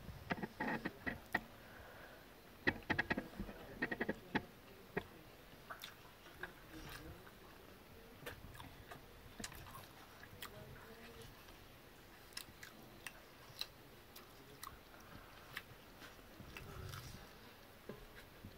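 Two people eating biryani with their fingers: wet chewing and mouth clicks, with soft squishing of rice pressed by hand. There are quick runs of clicks in the first four seconds, then scattered single clicks.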